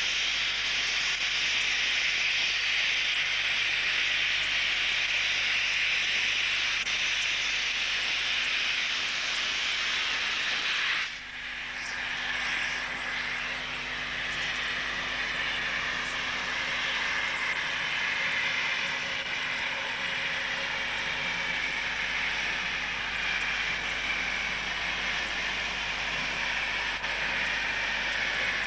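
Steady loud hiss of steam escaping around a South African Railways class 25 condensing steam locomotive, with no exhaust beat, because its exhaust steam goes to the condenser. The hiss dips sharply for a moment about eleven seconds in, and afterwards a faint steady whine runs beneath it.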